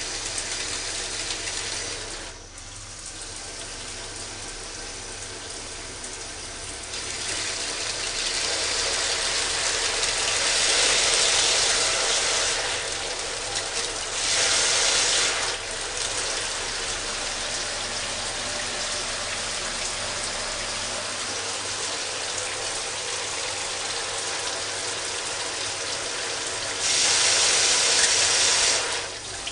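Water spraying from a shower head, a steady rushing hiss that swells louder for a few seconds at a time, several times over, as the flow changes.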